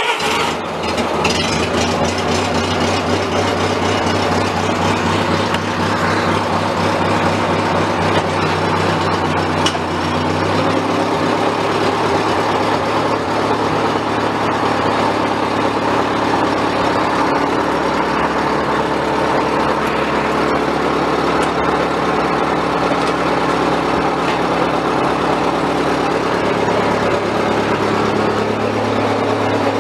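1970 Bobcat 610 skid steer's carbureted four-cylinder gasoline engine running on choke just after a cold start, having sat unused for three weeks. It runs steadily and loudly, its speed shifting a little around ten seconds in and again a little later.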